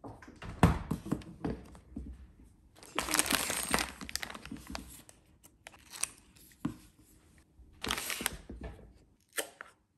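Foil lid being peeled off a plastic Chobani yogurt cup: a tearing, crinkling stretch about three seconds in, with knocks and crinkles as the cup and packaging are handled and set down.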